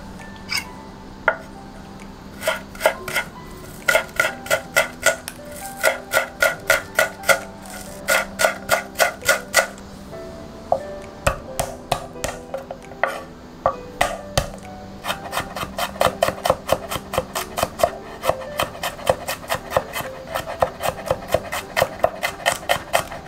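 Knife chopping on a wooden cutting board: spaced runs of chops through green onions, then garlic cloves chopped and minced, ending in a fast, even run of about five strokes a second. Light background music plays underneath.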